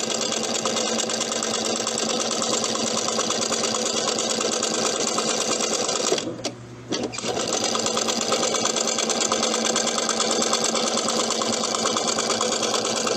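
Singer sewing machine running at speed, stitching a zipper in with a fast, even needle rattle. It stops briefly about six seconds in, then runs on.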